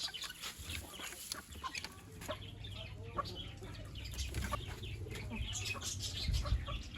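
Desi chickens and chicks clucking and peeping in short, scattered calls over a low, steady rumble.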